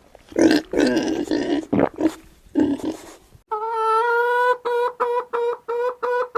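An animal calling in rough, noisy grunting bursts for about half the time. Then a clean pitched tone takes over: it holds for about a second, then repeats as short even beeps about three a second.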